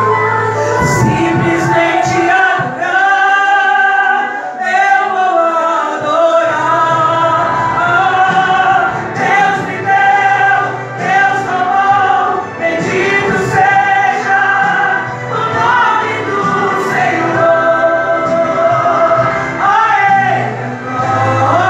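A woman sings a gospel song into a microphone, amplified, over musical accompaniment. She holds long notes between phrases.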